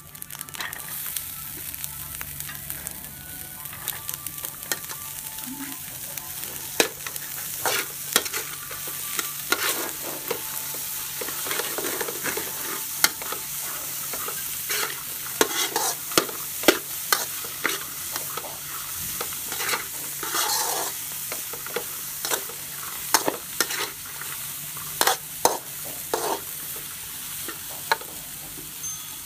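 Fried rice sizzling in a stainless-steel wok while a metal spatula stir-fries it, with frequent sharp scrapes and clacks of the spatula against the wok, getting busier after the first few seconds.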